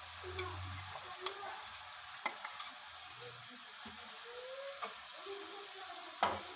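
Minced meat and fried okra sizzling in a metal pot while a slotted metal spoon stirs them, with light scrapes and clicks of the spoon against the pot. The sharpest knock comes near the end.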